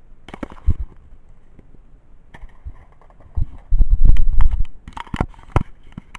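Hands tearing open and handling a trading-card booster pack, with scattered clicks and crinkles. About four seconds in there is a loud rustling rumble lasting about a second, as the pack or cards are handled close to the microphone.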